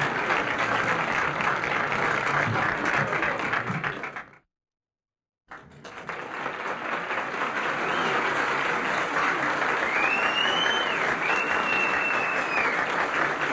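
Large outdoor crowd applauding and cheering, a dense steady clatter of many hands clapping. It cuts off abruptly about four seconds in and is silent for about a second, then swells back in. Near the end, shrill gliding whistles rise over the applause.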